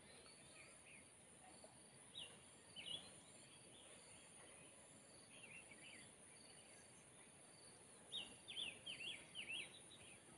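Faint garden ambience: a steady high-pitched insect drone with short sweeping bird chirps, a couple about two seconds in and a quick run of them near the end.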